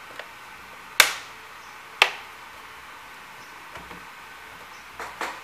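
Sharp knocks of a laptop's plastic casing being handled and pressed on a workbench: two loud knocks about a second apart, then a few softer taps near the end.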